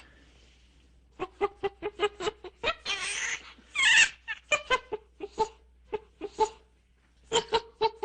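A monkey chattering: quick runs of short, clipped calls, several a second, with a harsher, louder shriek about four seconds in. The calls pause briefly near the end, then start again.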